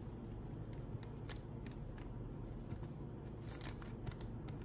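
Sharpie permanent marker writing on a plastic zip-top bag: short, faint scratches of the felt tip across the plastic, over a low steady hum.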